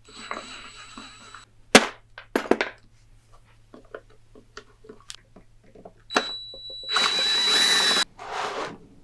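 Power drill boring into a cast-metal bandsaw part. The motor runs with a steady high whine as the bit cuts, in two runs, the second and louder one about six seconds in. Between the runs come sharp clicks and knocks of tools and parts being handled.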